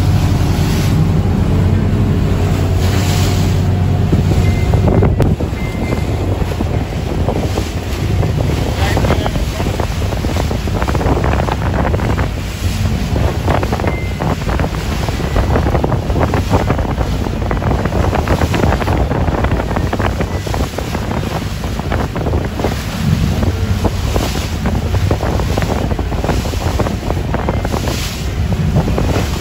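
Wind buffeting the microphone on a lobster boat underway at sea, over the low drone of the boat's engine and the rush of waves against the hull. The engine's steady hum is clearest in the first five seconds, after which gusts and water noise dominate.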